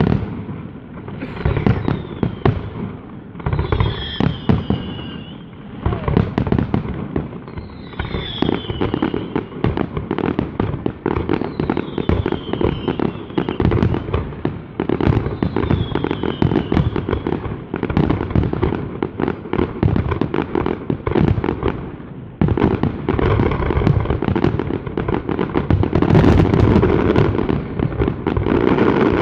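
Fireworks display: shells bursting one after another with constant crackle, and several falling whistles in the first half. The bursts thicken into a louder, near-continuous barrage about three-quarters of the way in.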